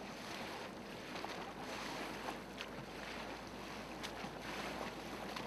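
Water lapping and splashing lightly around a small homemade wooden rowboat, with a few faint drips or ticks, over steady wind noise on the microphone.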